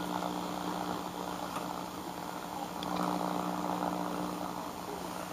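A Radio Shack 12-795 multiband receiver plays static and a steady hum through its speaker on the AM broadcast band, with no clear voice or music coming through. The hiss swells for a moment about three seconds in while the direction-finder antenna is being turned.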